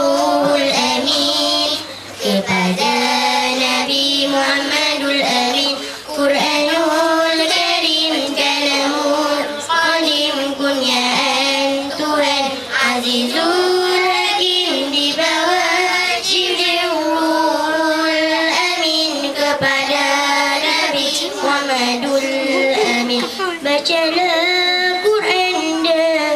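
Girls' nasyid group singing into a microphone in long, drawn-out held notes.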